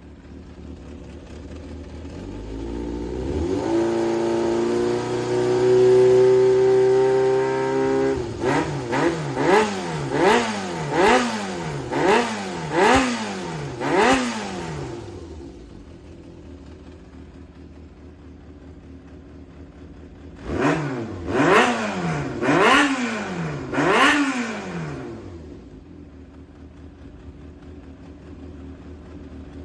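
Yamaha XJR400 (4HM) inline-four motorcycle engine being revved: it climbs about two seconds in and holds high revs for several seconds, then is blipped seven times in quick succession, drops back to idle, and is blipped four more times before idling again. It runs without abnormal noise, which the seller takes for an engine in excellent condition.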